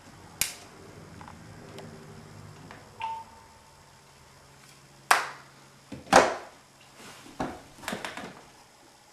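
Mobile phone being handled at a table: a small click, a short beep about three seconds in, then several sharp clacks and knocks, the loudest two about five and six seconds in.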